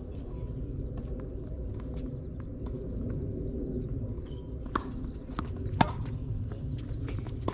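Footsteps and small scuffs with a few sharp knocks, the loudest just before six seconds in, over a steady low rumble.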